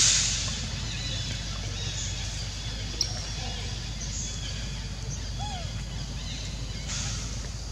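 Outdoor ambience: faint scattered bird chirps over a steady low hum, with a short burst of noise right at the start, a single click about 3 seconds in and one short rising-and-falling call a couple of seconds later.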